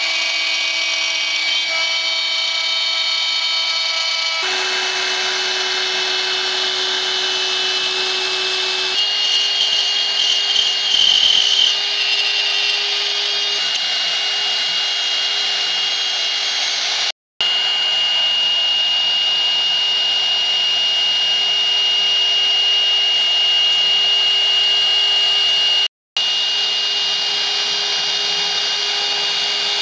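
CNC router spindle running with a steady high whine while its small bit cuts into a wooden board, carving a relief. The sound cuts out abruptly twice for a split second, and the pitch of the whine shifts at a few points.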